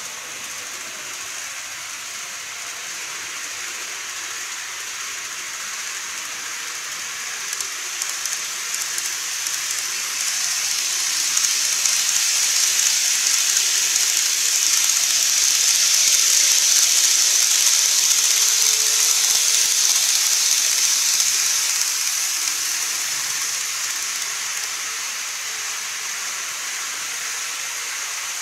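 N-gauge model train running round a curved model viaduct track: a steady high hiss of wheels and motor that grows louder as it comes past, peaks a little past halfway, then fades away.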